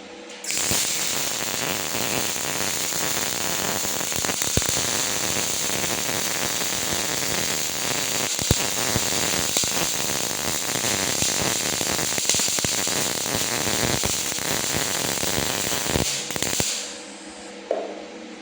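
Semi-automatic wire-feed welder's arc crackling and sputtering steadily through one long continuous weld, starting about half a second in and stopping near the end.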